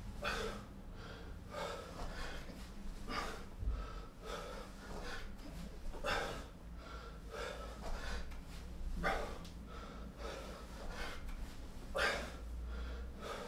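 A man breathing hard through a set of sit-ups: a short, forceful breath about once a second, in time with the reps.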